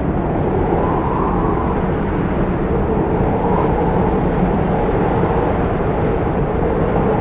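Strong mountain wind howling: a steady, loud rush with a low moaning tone that drifts slightly up and down.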